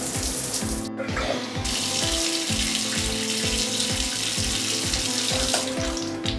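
Water pouring from a thin plastic hose into a shallow tray of soapy water, a steady splashing that thins briefly about a second in, over background music with a steady beat.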